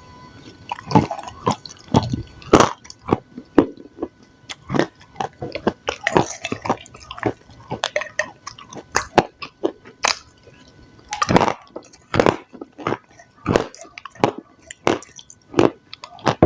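Close-miked mukbang eating: a person chewing food in an irregular run of short, sharp mouth sounds and bites, about two or three a second.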